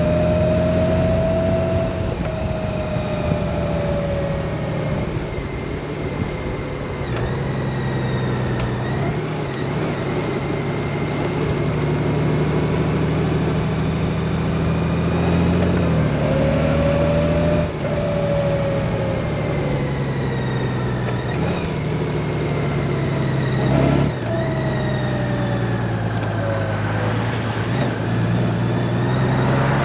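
Honda Gold Wing's flat-six engine running at cruising speed under the rider, with road and wind noise and a higher whine that rises and falls with speed. The engine note steps suddenly twice, a little over halfway through and again near the end, as the dual-clutch gearbox changes gear.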